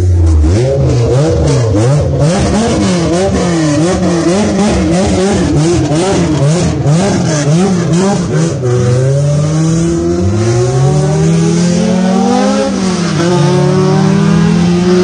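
Toyota Corolla AE100's swapped 2ZZ 1.8-litre four-cylinder engine revved up and down repeatedly, about twice a second. About eight seconds in it pulls away, the revs rising, falling once at an upshift, then rising again.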